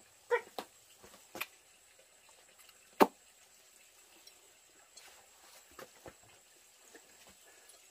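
Scattered light clicks and knocks, with one sharp knock about three seconds in as the loudest sound, over a quiet background.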